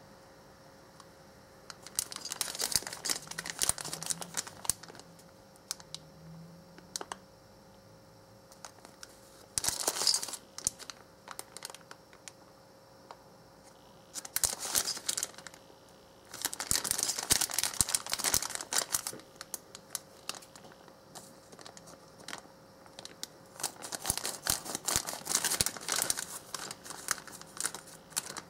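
Plastic-film candy packet crinkling in several bursts as hands squeeze and turn it over.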